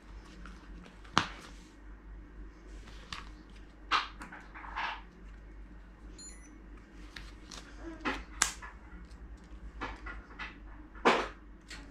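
Sharp plastic clicks and handling noises from a blood glucose testing kit: a lancing device being opened and fitted with a fresh lancet, a test-strip vial and the meter handled in their zippered case. The loudest clicks come a little over a second in and near the end, with a faint short beep around six seconds in.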